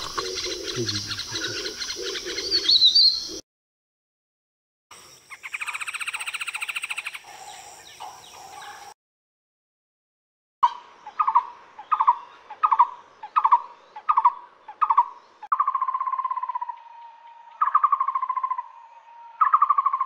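Recorded woodpecker calls played in three separate clips with silent gaps between them. The last and loudest starts about ten seconds in: a series of sharp, falling calls about twice a second, then longer rattling trills, the call of a Black-rumped Flameback woodpecker.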